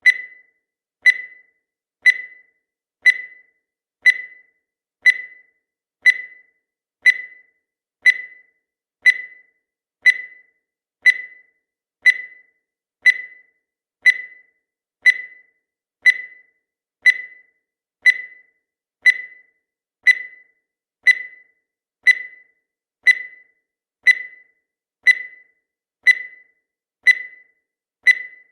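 Countdown timer beeping once a second: a short, high beep that fades quickly, repeated evenly.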